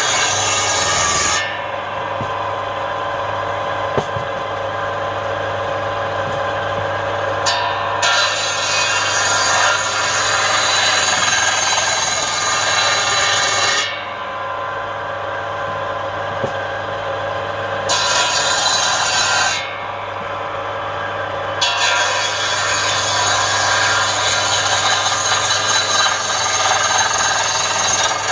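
Table saw's circular blade ripping lengthwise along a wooden block. The run has a steady hum and whine, and a louder, hissing cutting noise swells whenever the blade is in the wood. That happens four times: at the start, from about 8 to 14 seconds, briefly around 18 seconds, and from about 22 seconds on. Between cuts the blade spins freely and is quieter.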